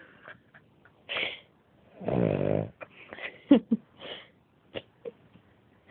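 Dog snoring in its sleep: a short breath about a second in, then one long, loud snore about two seconds in, followed by a few short squeaky sniffs.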